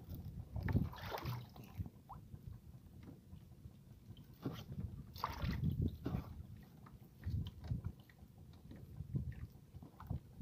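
Water sloshing irregularly against a small boat's hull in several separate surges, with a few light knocks from fishing line being handled at the gunwale.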